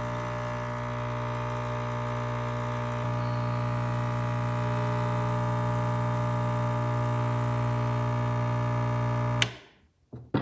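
Rancilio Silvia espresso machine's water pump running with a steady hum, pulling cold water into the boiler while hot water drains out, so that the boiler cools and reheats. It stops abruptly with a click about nine and a half seconds in.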